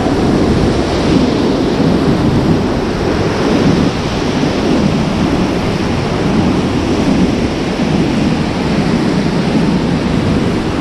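Whitewater rapids rushing and churning around an inflatable raft: a loud, steady wash of water noise with a heavy low rumble.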